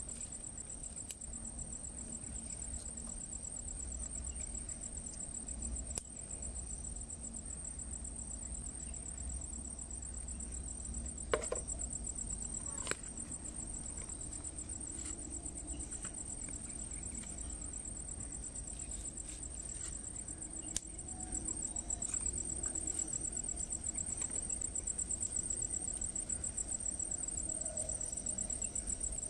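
Insects trilling in a steady, high-pitched, fast-pulsing drone, with a few sharp clicks and light crackling from a small wood fire being fed with sticks, the crackling a little busier in the last third.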